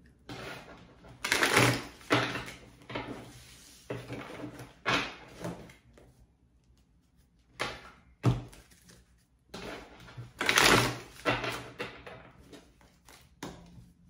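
A deck of oracle cards being shuffled by hand: a run of papery rustles and slaps, with a pause of about a second and a half a little before the middle.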